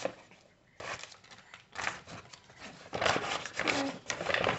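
Packaging being handled: a few short rubbing and scraping sounds, then denser, louder crinkling of a brown paper envelope from about three seconds in.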